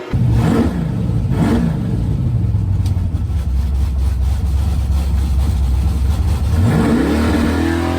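Drag race car engine running loud. Its pitch falls twice in the first two seconds, holds steady and low, then climbs over the last second or so.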